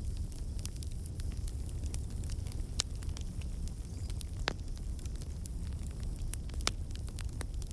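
Fire in a fireplace crackling: frequent small pops and a few sharper snaps over a steady low rumble of the flames.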